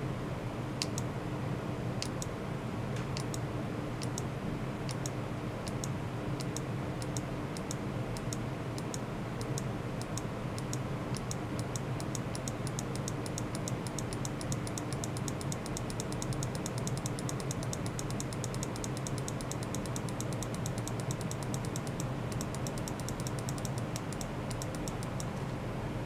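Steady low hum overlaid with sharp, high-pitched clicks that start out sparse and gradually speed up into a fast, even ticking.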